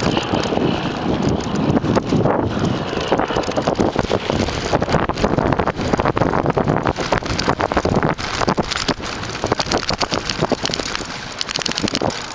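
Wind buffeting the microphone over constant rapid rattling and knocking, as a bicycle is ridden fast over a rough, rutted dirt track.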